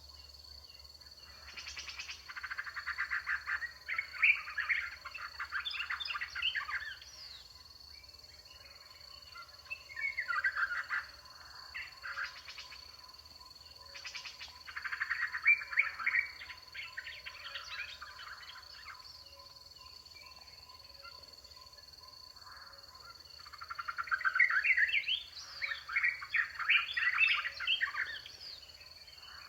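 African wild dogs (painted dogs) twittering: bouts of rapid, high-pitched, bird-like chirps lasting a few seconds each, with quiet gaps between. The longest bouts come a few seconds in, around the middle and near the end.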